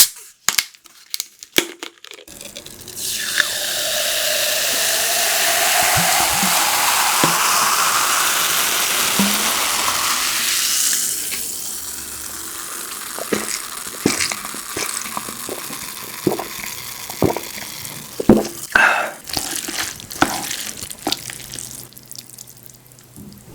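Liquid poured steadily into a vessel for about eight seconds, the pitch of the pour rising as the vessel fills. Before and after it come scattered light clicks and taps of chopsticks and tableware.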